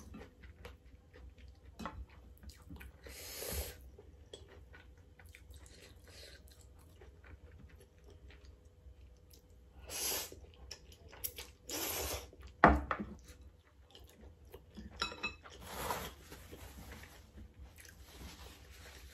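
A person chewing and slurping spicy Samyang instant noodles, with a few short loud slurps, one about ten seconds in, and a sharp click a little later.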